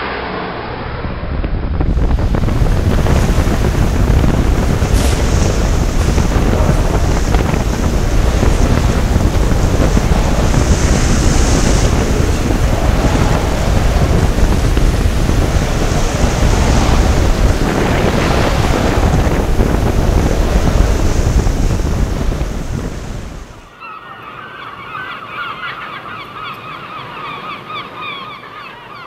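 Storm waves breaking over a sea wall and washing across a promenade, with strong wind buffeting the microphone as a loud, steady rush. It cuts off suddenly near the end and gives way to quieter, repeated animal calls.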